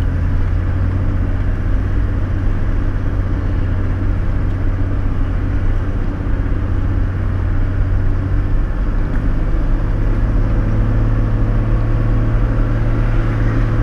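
Toyota LandCruiser 105 series engine running at low revs, a steady low drone heard from inside the cabin; its note rises a little about ten seconds in.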